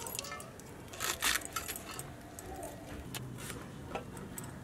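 Fresh leafy green stems being snapped and torn by hand, a scattered string of short crisp snaps and clicks, with bangles clinking on the wrists.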